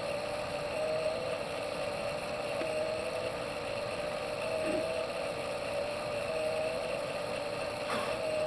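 The electric motor of a motorized fire tornado rig running with a steady hum that wavers slightly in pitch, over the rushing of the spinning flame column.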